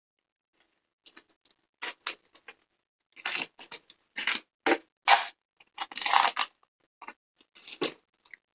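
Clear plastic packaging film crinkling and rustling in short, irregular bursts as it is pulled off a folding table, loudest around the middle.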